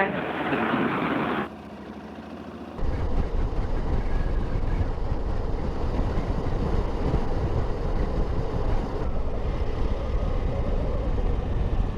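KTM adventure motorcycle riding on a road: engine and wind rush heard from the rider's microphone. After a brief quieter stretch, a steady low rumble with a rushing haze sets in about three seconds in and holds.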